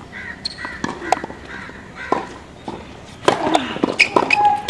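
Tennis ball struck by racquets and bouncing on a hard court: several sharp hits spread through the rally. Loud pitched calls come in about three seconds in and are the loudest sound near the end.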